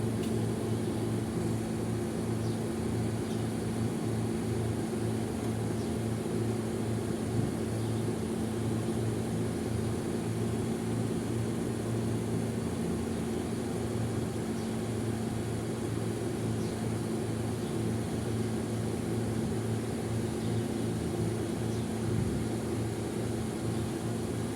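A vehicle engine running steadily, a constant low hum with a few fixed tones.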